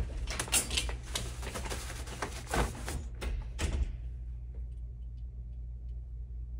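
Quick clattering and rustling for about four seconds, then it stops: clothes hangers knocking and sliding on a metal clothes rack as garments are pulled off and stuffed away. A steady low hum runs underneath.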